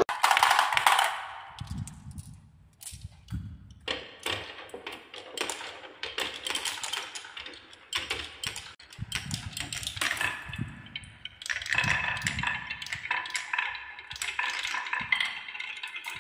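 Glass marbles rolling and clattering down wooden marble-run tracks: a dense run of small clicks and knocks as they hit the wood and each other, with clinking, ringing tones in the second half.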